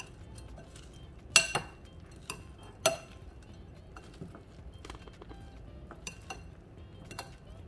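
A spoon clinking against a mixing bowl as the puffed-rice bhel mixture is stirred: scattered sharp clinks, the two loudest about a second and a half and three seconds in.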